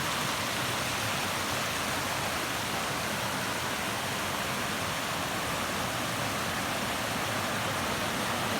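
Waterfall water rushing as a steady, even roar of falling and running water; the falls are running low because it hasn't rained.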